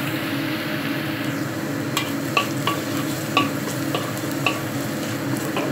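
Minced garlic sizzling in hot oil in a blackened wok while a metal spatula stirs it, scraping and clicking against the wok about every half second. The garlic is being sautéed until golden.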